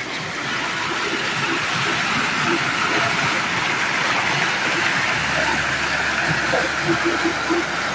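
Fast stream water churning and rushing where a pipe outlet pours into the channel: a steady splashing rush.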